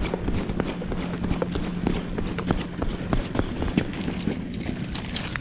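Quick footsteps of someone hurrying, about four to five steps a second, over a steady low hum that stops near the end.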